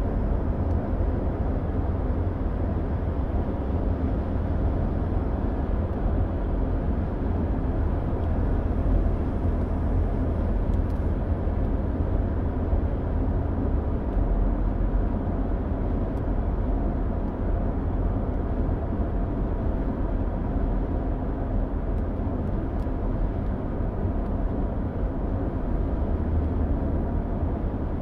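Steady low rumble of a car cruising at highway speed, heard from inside the cabin: tyre and road noise with the engine underneath.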